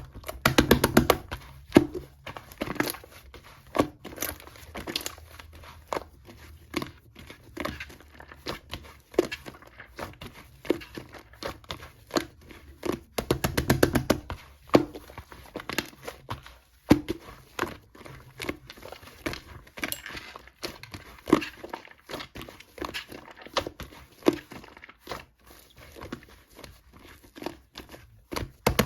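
Slime being squished and pressed by hand, giving sticky clicks and crackling pops, with runs of rapid popping about a second in and again around fourteen seconds.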